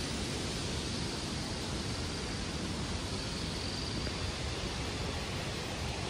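Steady rushing of a large waterfall: a constant, even wash of water noise that does not change.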